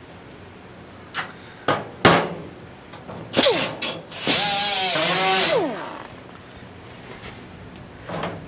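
Handheld power tool worked against the steel of a VW Westfalia sales flap in two short bursts, the second longer and louder, the motor winding down after each. A few sharp knocks of tools on the metal panel come before them.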